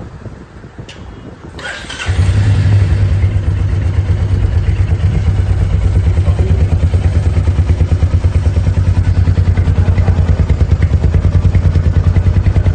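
Royal Enfield Meteor 350's single-cylinder engine being started: a brief cranking sound, then it catches about two seconds in and idles with a steady, evenly pulsing beat. It is run so as to check for tappet noise.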